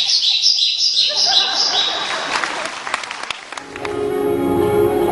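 A quick run of about five high chirps, a cartoon bird-tweet sound effect, followed by a spell of audience applause. Plucked guitar music starts near the end.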